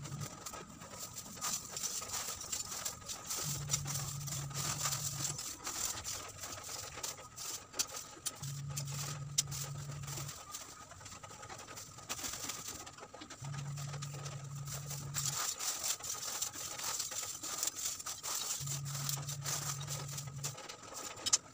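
Lumps of wood charcoal clinking and scraping against each other, with a plastic bag crinkling, as charcoal is scooped by hand into small bags. A low, even drone about two seconds long comes back roughly every five seconds underneath.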